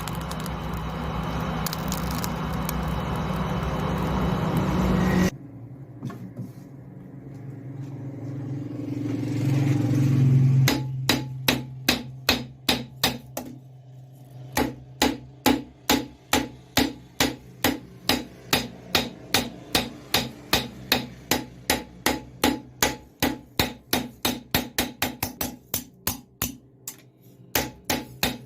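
Blacksmith's hammer striking metal in a steady rhythm, about two blows a second, quickening toward the end, over a low steady hum. Before that comes a loud, steady rushing noise that cuts off suddenly about five seconds in, followed by a hum that swells for several seconds.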